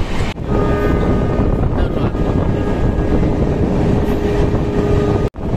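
Passenger train coaches running at speed, heard at an open window: the steady rumble of wheels on the track mixed with wind on the microphone. A steady high whine runs through most of it. The sound cuts out for an instant near the start and again just before the end.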